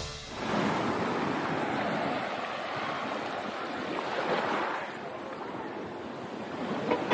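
Small sea waves washing in over a pebble beach, swelling once about four seconds in.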